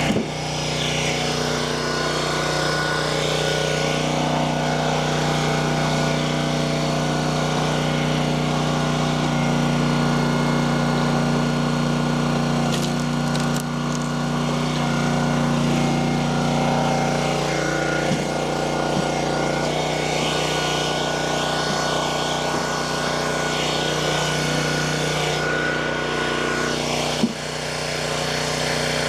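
Log splitter's small gas engine running steadily at a constant speed. Its note shifts slightly about two-thirds of the way through, and it dips briefly near the end.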